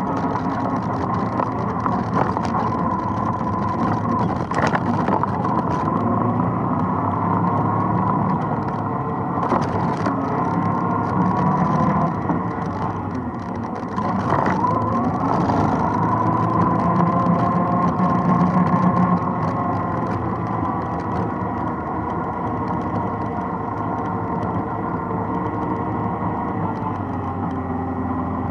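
ATV engine running under way, its pitch rising and falling as the throttle changes, with a few sharp knocks along the way.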